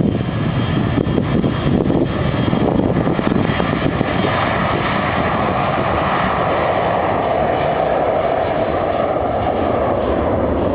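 Jet engines of a Boeing 737-400 (CFM56-3 turbofans) running loud and steady during takeoff. The rushing noise grows stronger in its middle range from about four seconds in.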